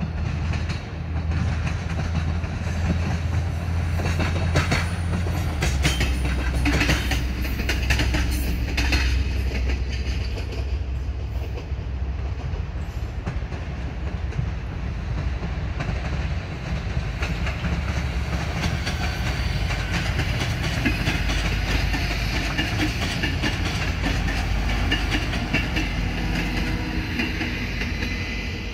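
A train passing on the tracks: a steady low hum from the locomotive, with clicking of wheels over rail joints a few seconds in, and a higher rushing, screeching rolling noise in the second half.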